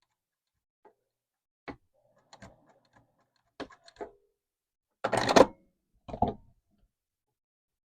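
Scattered small clicks and knocks of handling at a sewing table, with a louder rustling, scraping burst about five seconds in and a dull thump just after.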